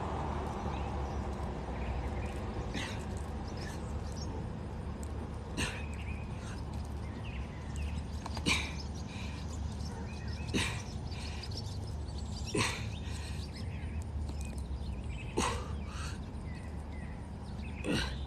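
Birds chirping faintly over a steady low background rumble, with a short sharp sound about every two to three seconds.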